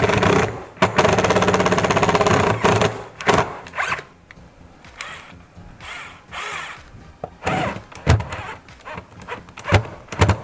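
A 12-volt cordless drill driving a screw into the top of a square steel tube. It runs steadily for about two seconds near the start, then gives a string of short bursts and clicks as the screw is seated, one burst speeding up and slowing down.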